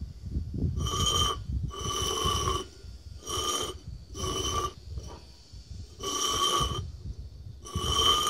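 Small upturned flower pots slid and shuffled by hand across concrete paving: six scraping passes of about half a second to a second each, every scrape carrying the same steady ringing tone from the pots.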